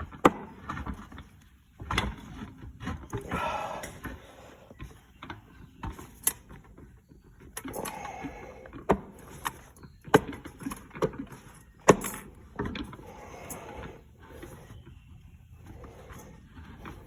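Metal transmission parts and tools being handled and set down: scattered knocks and clinks with a few short scrapes and slides.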